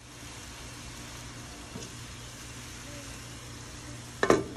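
Steady hiss and low hum of a pot cooking on the stove under a glass lid, then two loud knocks close together about four seconds in.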